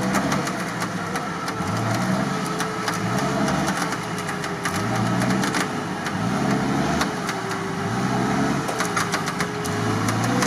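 Off-road vehicle engine running steadily with a slow throb about once a second, under a steady whine that wavers slightly in pitch.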